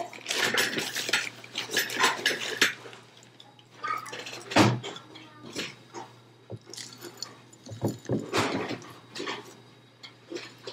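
Green plastic scoop scraping and knocking in a red plastic bowl, and soil mix being poured into a glass jar, as an irregular run of short scrapes and clicks.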